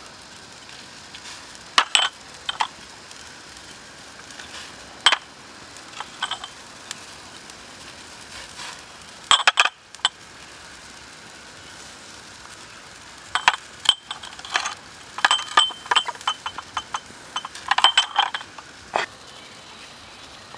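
Cup and spoon clinking against a stainless steel wok as seasonings are added and stirred in: scattered sharp clinks with a ringing note, a few at about 2, 5 and 9 seconds in and a busier run in the second half, over a faint steady hiss.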